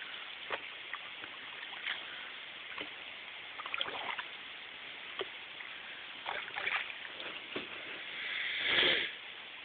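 Canoe being paddled on calm water: small splashes, drips and light knocks of the paddles, with a louder swish of water about eight seconds in.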